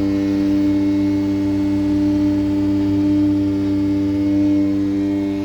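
A work vehicle's engine and machinery running with a loud, steady, humming drone that does not change in pitch.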